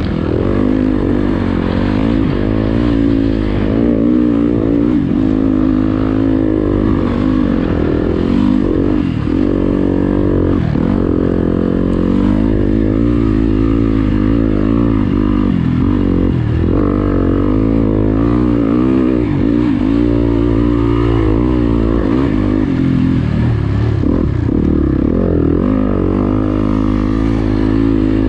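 Motocross bike engine heard from on board, revving hard and easing off again and again, its pitch rising and falling with each throttle and gear change as it pulls through deep sand.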